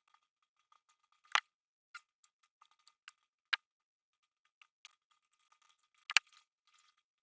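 Light, scattered clicks and taps of craft materials being handled on a tabletop, with sharper knocks about a second and a half in, three and a half seconds in, and a louder pair about six seconds in.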